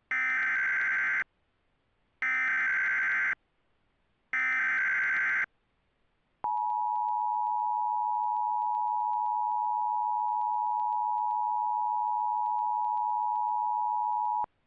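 Emergency Alert System tones. Three one-second bursts of warbling SAME header data, then the two-tone attention signal (853 and 960 Hz together), held steady for about eight seconds. Together they open a broadcast tornado warning.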